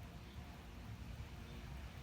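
Faint, steady low rumble of distant city traffic under a light hiss of outdoor air.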